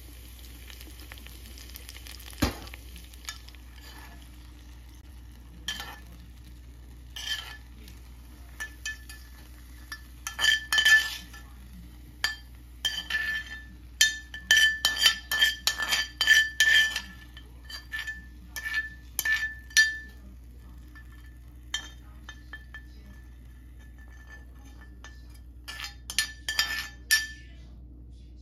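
A metal spoon clinking and scraping against a cast-iron skillet in quick runs of short ringing knocks as sauce is spooned out of the pan. There is one sharp knock a couple of seconds in.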